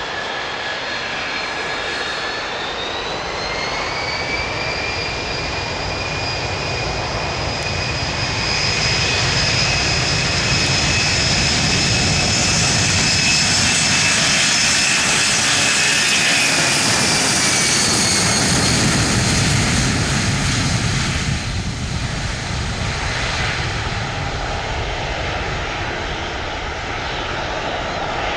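Boeing C-32A (757-200) jet's twin turbofans spooling up to takeoff power: the engine whine rises in pitch a few seconds in, then the jet noise builds loud as the aircraft runs past on its takeoff roll, the whine dropping in pitch as it passes. It eases somewhat near the end as the jet rotates for lift-off.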